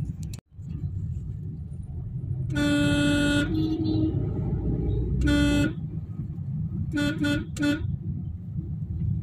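Vehicle horns honking in city traffic over the low rumble of a moving car heard from inside the cabin. A long blast comes about two and a half seconds in, a second, higher horn follows briefly after it, a shorter blast comes in the middle, and three quick toots come near the end.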